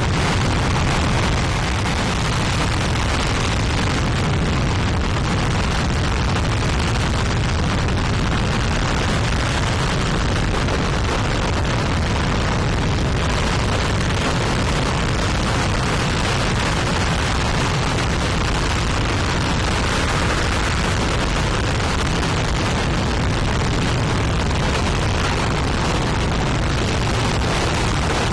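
RS-25 liquid-hydrogen rocket engine, a former Space Shuttle main engine, firing in a ground hot-fire test: a loud, steady roar with a deep rumble underneath.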